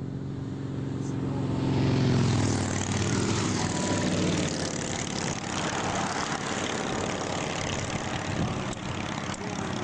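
A vehicle passing on the highway: its engine note grows louder to a peak about two seconds in, then gives way to a steady rushing noise.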